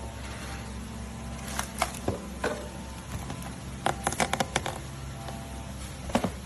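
A series of sharp clicks and taps from a travel hair dryer being handled, with a quick cluster of them about four seconds in, over a steady low hum.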